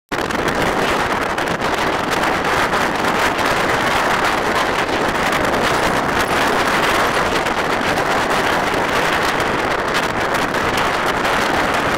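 Wind blowing hard across the camera microphone under a supercell: a steady, loud rushing noise that flickers with the gusts.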